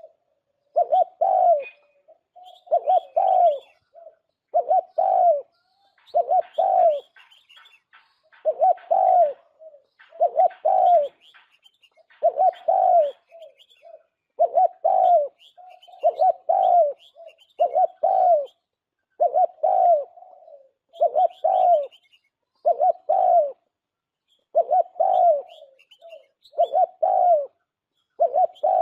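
Spotted dove (chim cu gáy) cooing phrases, a lure-call recording for bird trapping, repeating about every two seconds. Faint high chirps of small birds run beneath.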